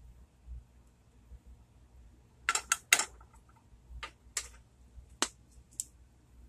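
Several short, sharp clicks and light knocks of small kitchen items being handled and set down on the countertop, bunched between about two and six seconds in, the loudest near three seconds.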